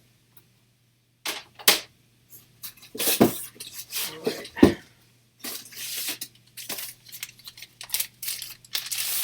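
Hard plastic graded-comic slabs being handled: several sharp clacks in the first five seconds as cases are picked up and set down, then sliding and rustling over the last few seconds.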